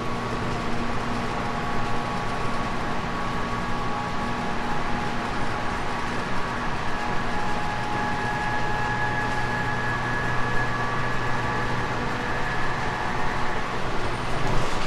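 JR 719 series electric multiple unit running along the line: a steady rumble of wheels and track, with thin whines from the motors and gears that fade in and out.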